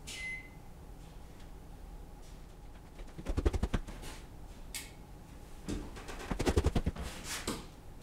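Footsteps on a hard floor, in scuffing bursts of quick knocks, with a sharp click a little past the middle as a wall light switch is flipped.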